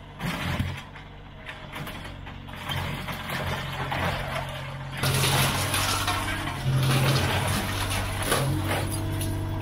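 Komatsu PW30 wheeled excavator's diesel engine running under hydraulic load while the bucket and thumb dig into a pile of scrap metal, with scraping, clanking and crunching of metal. It gets louder about five seconds in and again near seven seconds as the machine works harder.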